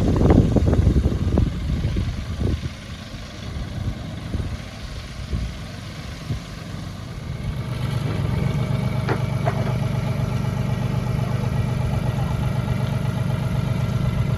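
A few knocks and clatter at the start, then a motor engine running steadily at idle from about halfway through.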